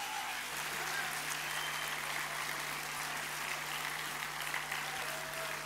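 Large audience applauding steadily, a dense continuous patter of many hands clapping.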